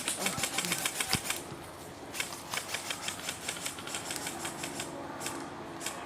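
Airsoft guns firing on full auto: rapid clicking shots at about ten a second. The shots are heaviest in the first second and a half, keep going fainter, and come again as a burst near the end.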